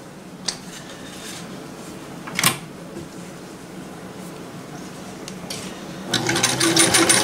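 A 1975 Singer Fashion Mate 360 electric sewing machine starts stitching about six seconds in, a rapid, even mechanical rattle that is the loudest thing here. Before it, a couple of light knocks and soft rustling come from the fabric being positioned under the presser foot.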